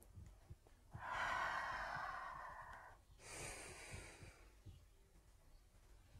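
A woman's slow, deep breath in through the nose, about two seconds long, followed after a brief pause by a shorter breath out, done as a grounding breathing exercise.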